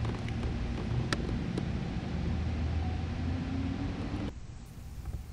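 Steady low rumble with a faint hum and a single click about a second in; the rumble drops away abruptly about four seconds in.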